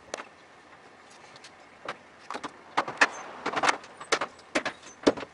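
Small stock plastic fender flare being pulled off a Ford F-150's wheel arch: a run of sharp clicks, snaps and scrapes of plastic as its push-in retaining clips are worked out of their holes, mostly from about two seconds in.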